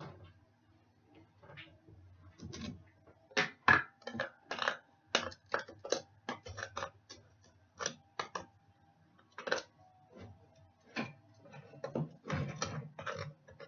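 A metal spoon clinking and knocking against the side of a container while sugar is stirred, in irregular taps about one to three a second with short pauses.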